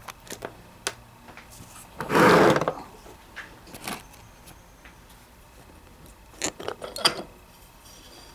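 Small steel screws and parts of a winch being handled: scattered metal clicks and clinks, with a louder scraping noise about two seconds in and a quick run of clicks near the end.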